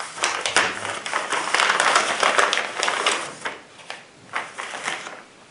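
Clear plastic packaging bag crinkling and crackling as it is pulled open and a plastic paddle holster is slid out. Near the end there are a few separate light clicks and taps as the holster is handled.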